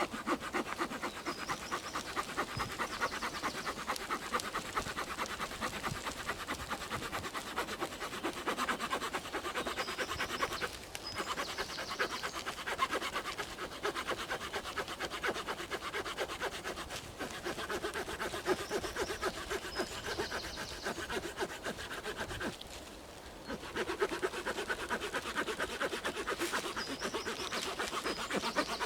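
Saw blade of a Victorinox Ranger Grip 55 pocket knife cutting through a thick wooden log with fast, steady back-and-forth strokes. There are brief pauses about 11 and 23 seconds in.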